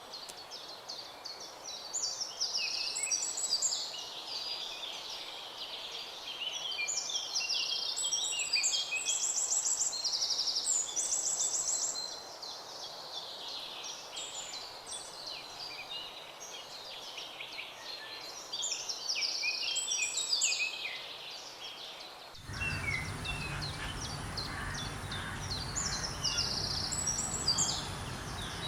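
Several songbirds singing and chirping, with quick repeated phrases and trills. About 22 seconds in, the background changes abruptly: a low rumble and a steady high-pitched hum begin under the birdsong.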